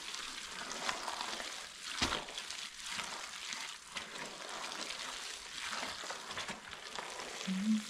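Rubber-gloved hand stirring and squeezing kimchi seasoning paste of red pepper flakes, julienned radish and minced garlic in a large plastic basin, making a continuous gritty, wet rustle with small clicks. A single knock comes about two seconds in.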